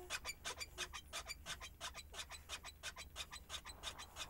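Quiet, rapid, even ticking, about six ticks a second.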